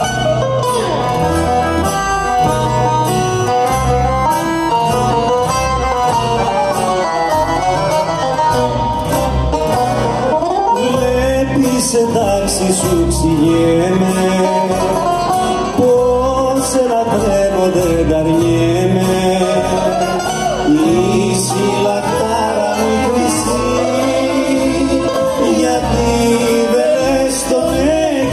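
A small Greek rebetiko-style ensemble playing live: accordion, acoustic guitars and double bass, with a melody that bends and slides in pitch over a steady bass pulse.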